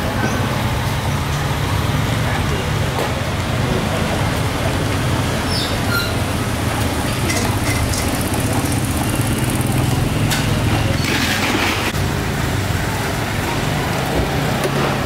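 Steady street background of road traffic with a constant low rumble, and a few short clinks about ten to twelve seconds in.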